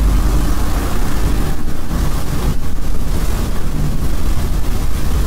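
Loud, steady, deep rumbling drone with a wind-like rushing hiss over it, the staged 'strange sound' of a hoax apocalyptic-sounds video built from layered sound effects.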